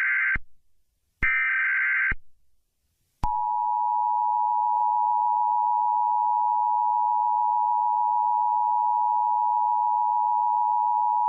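Emergency Alert System header tones. The end of one SAME data burst is followed by a second harsh, buzzing data burst of about a second about a second in. Then, a little over three seconds in, the steady two-tone EAS attention signal (853 and 960 Hz) begins and holds.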